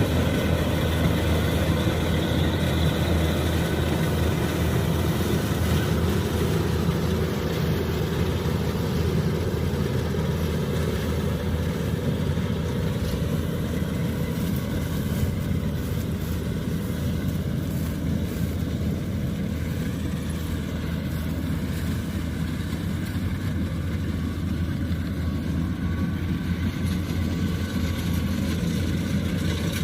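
Kubota combine harvester's diesel engine running steadily, easing a little in loudness through the middle stretch.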